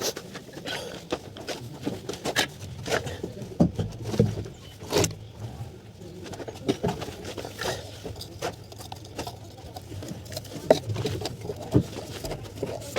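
Irregular sharp knocks and clicks, one to a few a second, over a faint background of voices.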